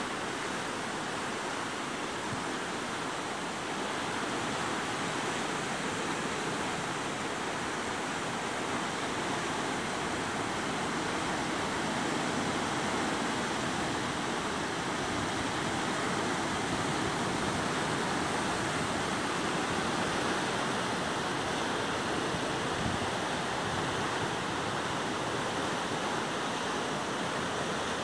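Ocean surf breaking and churning over a rocky shore: a steady, even rush of water.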